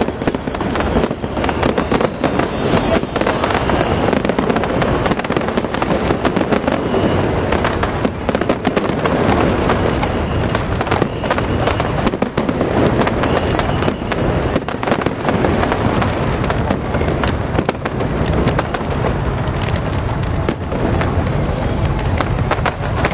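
Fireworks show: a dense, continuous crackle of rapid pops and small bangs from spark fountains and low aerial shells fired over the river.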